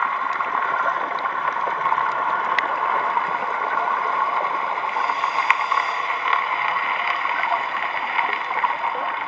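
Steady underwater rushing hiss picked up by a camera underwater on a coral reef, with a few scattered sharp clicks.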